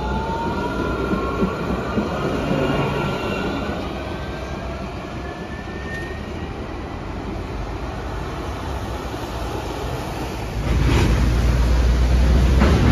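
Steel-wheeled light-rail tram pulling away and accelerating, its electric traction drive giving a rising whine over the rumble of wheels on rail. About two seconds before the end a louder low rumble comes in, with a few knocks.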